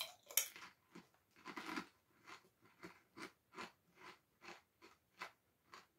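Mouth chewing Smith's Double Crunch potato chips: a steady run of crisp crunches, about two to three a second, faint.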